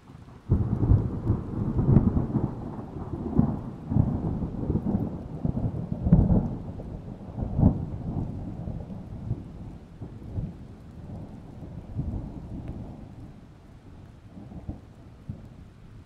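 Thunder that breaks in suddenly about half a second in and rolls on as a long rumble, with several loud peaks over the next eight seconds before slowly dying away. Rain falls underneath.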